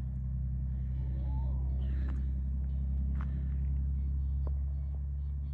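An engine running steadily with a low, even hum, with a few faint clicks over it.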